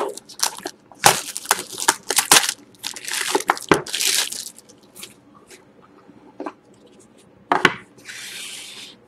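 Clear cellophane shrink-wrap being torn off a cardboard trading-card box and crumpled in the hands, crackling and rustling sharply for about four seconds. Then quieter handling of the box, with one sharp click and a brief soft rasp near the end as the box is opened.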